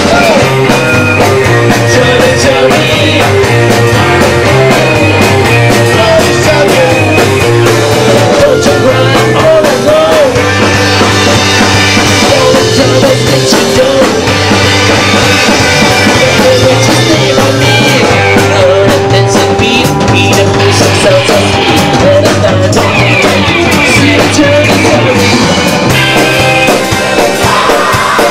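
Live rock band playing loudly and without a break, with electric guitar and a drum kit.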